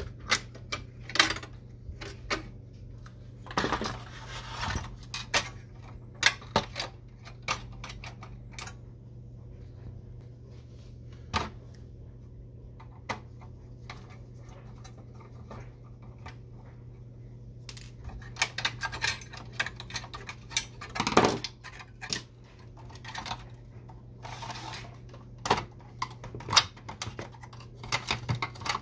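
Scattered clicks, taps and rattles of hard plastic parts and a screwdriver being handled while an Epson XP-340 inkjet printer is taken apart. There is a sparse spell in the middle and busier clatter near the end, over a steady low hum.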